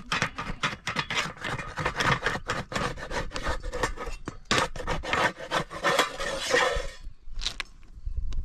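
Rapid, continuous scraping and rubbing against a dish, with light clatter. It stops about seven seconds in, leaving a few separate knocks.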